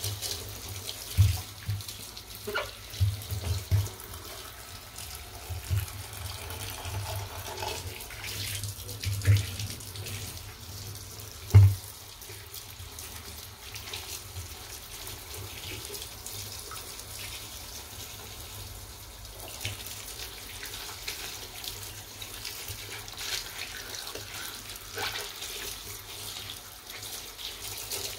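Tap water running in a steady stream onto a sneaker and splashing into a bathtub as the shoe is rubbed clean by hand. A few dull thumps come in the first half, the loudest about twelve seconds in.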